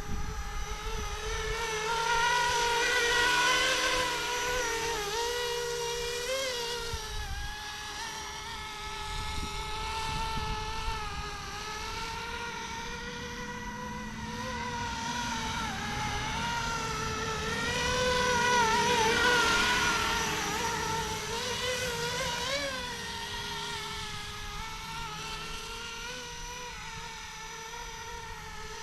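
Flishrc Little Bird 450-size RC helicopter flying: a steady whine of motor and rotor whose pitch wavers as it manoeuvres. It grows louder twice as it passes close, a few seconds in and again past the middle.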